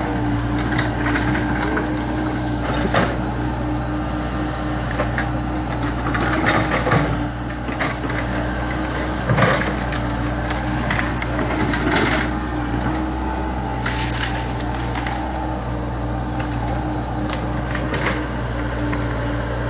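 Komatsu PC70 tracked excavator's diesel engine running steadily under load, with a steady hum and scattered knocks and cracks as the bucket works the soil and tree.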